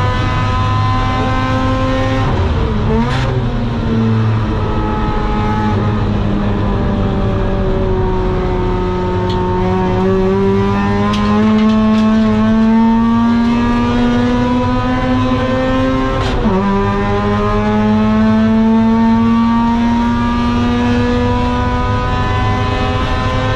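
Mazda RX-8's 192 PS four-port Renesis rotary engine at racing speed, sounding through a home-built long-tube exhaust with a Borla rear silencer. The revs fall with a gear change about three seconds in, then climb steadily for several seconds under acceleration. About two-thirds of the way through they drop sharply at an upshift and climb again.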